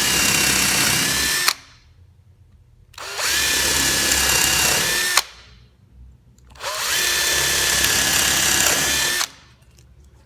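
Cordless drill boring holes through thin wood, run in three bursts of about two seconds each: a steady motor whine that cuts off sharply each time the trigger is released.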